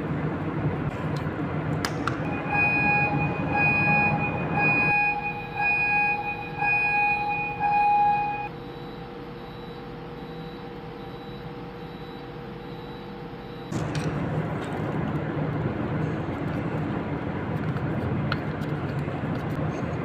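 Steering gear alarm beeping repeatedly over the steady din of the steering gear machinery, set off by the high oil temperature sensor being disconnected for the alarm test. Around the middle the machinery noise drops to a quieter steady hum while the beeps fade. The louder machinery noise comes back about three-quarters of the way in.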